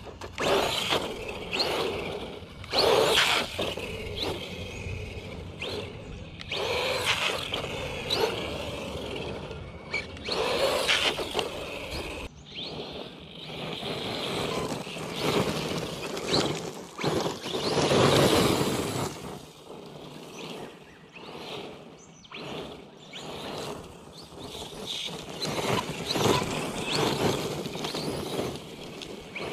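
ZD Racing DBX-10 brushless RC buggy running on loose ground, heard as irregular surges of motor and tyre noise every second or two as it speeds up, slows and passes.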